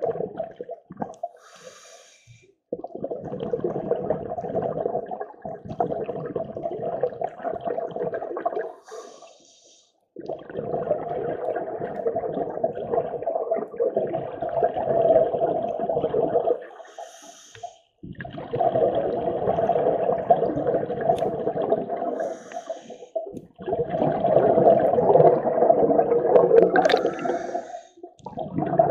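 Scuba diver breathing through a regulator underwater: a short hiss with each inhale, then several seconds of exhaust bubbles rushing out on the exhale, about five breaths in a row.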